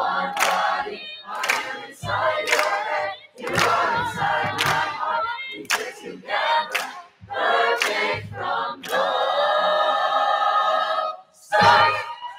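Choir singing an upbeat song in short phrases, with low thumps on some of the beats. About nine seconds in the choir holds one long chord, then gives a short loud final note just before the end.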